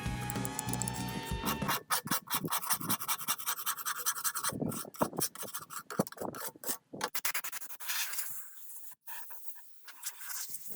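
Background music that stops about two seconds in, then a run of irregular scraping strokes with short gaps, growing fainter near the end.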